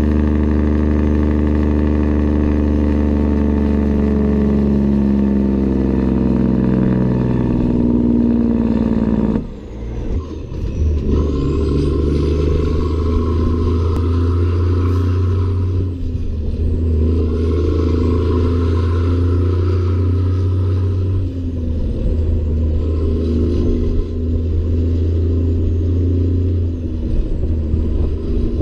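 Caterpillar 3406E inline-six diesel in a Peterbilt 379, tuned to 1000 hp, running hard through straight stacks, its note slowly falling for the first nine seconds or so. Then a sudden change to a deep, steady drone under load that drops out briefly three times, at gear changes.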